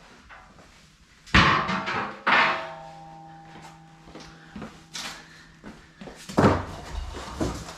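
A metal skid plate being set down and handled: two clanks about a second apart, then the plate rings on with a clear, fading tone for several seconds. A heavier thump comes near the end.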